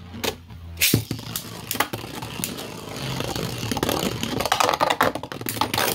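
Two Beyblade Burst spinning tops, one of them 3D-printed, whirring in a plastic stadium. There is a sharp loud clack just under a second in, then the tops collide again and again in a fast run of clicks and scrapes.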